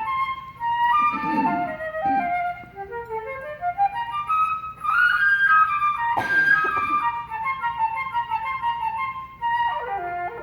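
Solo flute playing two quick rising runs of notes, then a passage of higher held and ornamented notes.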